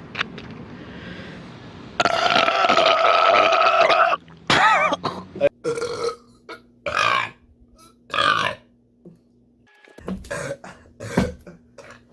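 Loud human burps: a long, steady belch of about two seconds begins two seconds in, followed by a string of shorter burps. After a sudden cut near the end, several more short burps.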